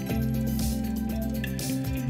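Background music: held low notes with a light, regular percussive beat.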